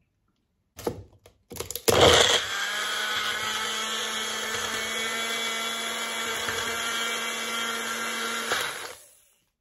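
A few short knocks, then a NutriBullet personal blender's motor starts with a brief louder burst and runs steadily for about six seconds before stopping. The frozen fruit stays lumped above the blade, and the blender is struggling with a load that she reckons may be too frozen for it.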